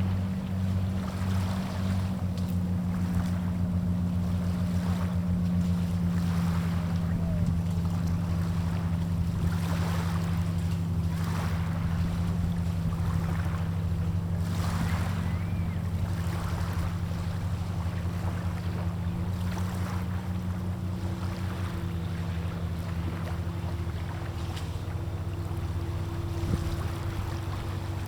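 Boat motor running with a steady low hum, with water splashing and wind gusting on the microphone every second or two.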